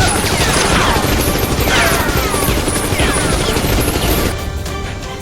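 Action music with a dense spell of dubbed gunfire and crash sound effects, crossed by three falling whistling sweeps. It eases off about four seconds in, leaving the music.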